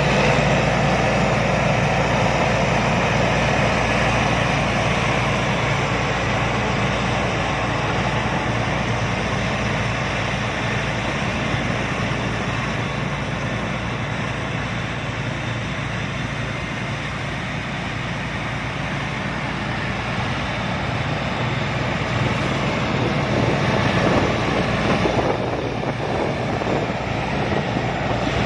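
Rice combine harvester running steadily: a continuous engine drone with the noise of its machinery over it. It eases off a little midway and grows louder again near the end.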